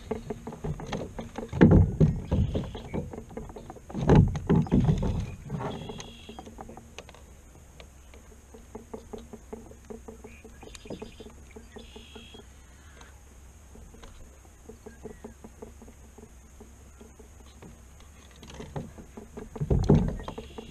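Knocks, bumps and rustling of handling against the plastic hull of an Ascend FS128T fishing kayak while a walleye is unhooked at its side, with three louder bouts of thumping: about two seconds in, around four to five seconds in, and near the end.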